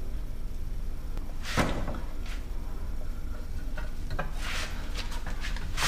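A few scattered knocks and clunks from handling an outboard lower unit gearcase as it is picked up for reinstallation, the sharpest about a second and a half in, over a steady low hum.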